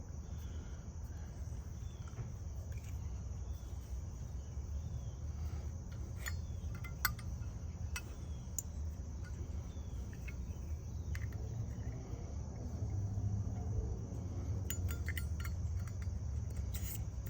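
Scattered light metallic clicks from a Zippo lighter case and butane insert being handled and pushed into place, over a low steady hum and faint insect-like chirping. The insert does not fit all the way in, so the lighter won't click shut properly.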